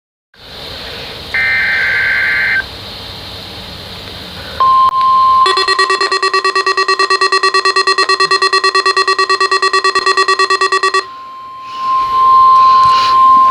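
NOAA Weather Radio test signal from weather radio receivers: a brief buzzy data burst, then a steady warning tone starting about four and a half seconds in. A receiver's alarm beeps rapidly over the tone for about five seconds, then the tone goes on alone.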